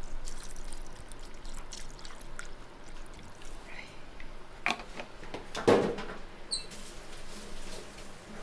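Kitchen work: scattered clicks and light knocks of utensils and containers, with a louder knock about six seconds in and a faint trickle of liquid.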